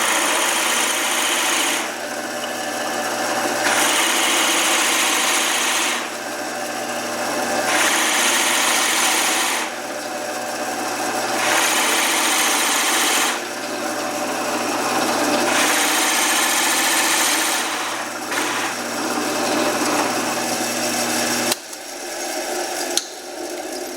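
Woodworking power tool running with a steady motor hum, its cutting or sanding noise swelling and easing about every two seconds as the wood is worked. The motor shuts off about three seconds before the end, and a few sharp knocks of wood follow.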